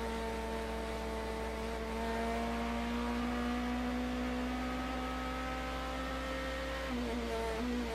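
Onboard sound of a BMW M3 GT's V8 race engine pulling down a straight, holding a nearly steady pitch, with a brief dip in pitch about seven seconds in as the driver lifts or shifts.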